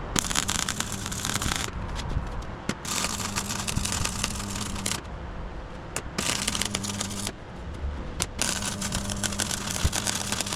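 Crackling, sputtering noise that comes in bursts of a second or two with short breaks between them, over a steady low hum.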